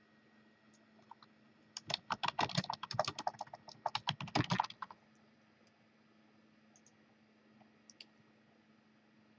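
Typing on a computer keyboard: a quick run of keystrokes, starting about two seconds in and lasting about three seconds, followed by a couple of faint clicks.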